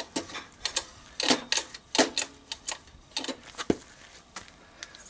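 Irregular light clicks and knocks, a few a second, from someone moving about and handling things close by.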